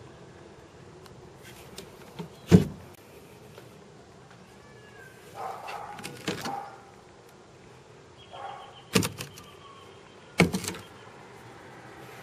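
A few sharp knocks and short clatters from things being handled, the loudest about two and a half seconds in and two more a second and a half apart near the end, with a faint high steady tone lasting about two seconds between the last knocks.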